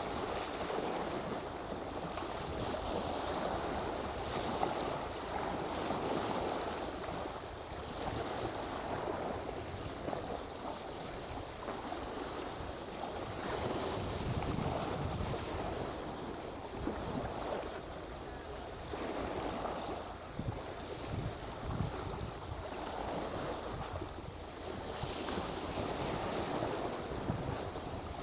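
Wind buffeting the microphone over the wash of surf, swelling and easing every few seconds.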